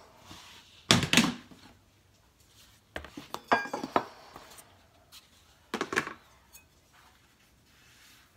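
Aluminium scoop and plastic storage tubs being handled: three short bursts of knocking and rattling, the loudest about a second in, the middle one with a brief metallic ring as the scoop is picked up.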